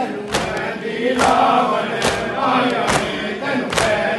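Men chanting a nauha (Shia lament) together while beating their chests in matam, a sharp slap landing in time about every second.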